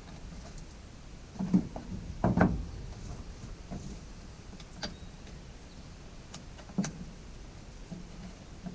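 A few scattered clicks and knocks of the chain, bar and plastic housing being handled while a new chain is fitted to a battery chainsaw; the motor is not running.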